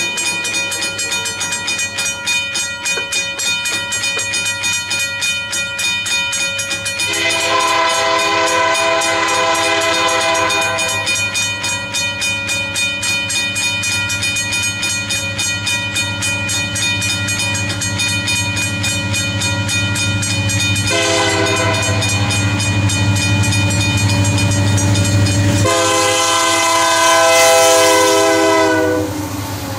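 Union Pacific freight train approaching and passing, led by an SD70M and an SD90/43MAC diesel-electric locomotive. The diesel engine drone grows louder as it nears. The air horn sounds three times: a long blast about seven seconds in, a short one near twenty seconds, and a long, loudest blast as the locomotives pass, cut off just before the end.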